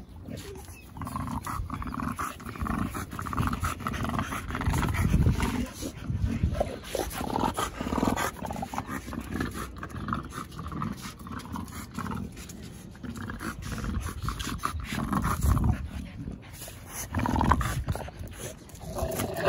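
Two American bully dogs play-wrestling, making dog noises in irregular bursts along with the scuffle of their bodies.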